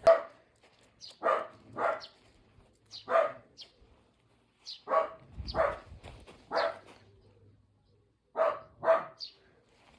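A dog barking in short, separate barks, about nine of them, often in quick pairs. There is a dull low thump about halfway through.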